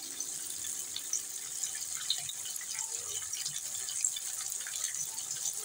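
Egg-and-breadcrumb-coated bread rolls deep-frying in hot oil: a steady sizzling hiss with fine crackling.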